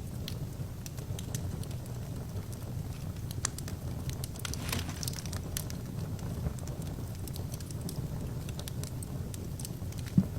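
Wood fire burning in an open fireplace: a steady low rumble of flames under scattered sharp crackles and pops. There is a brief hiss about halfway through and one loud pop near the end.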